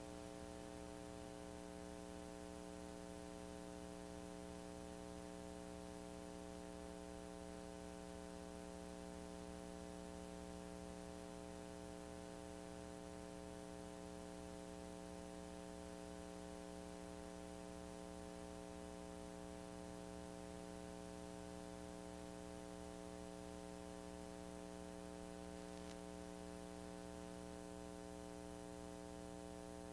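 Steady electrical hum made of several fixed tones over a faint hiss, the background noise of an old video recording's soundtrack with nothing else on it.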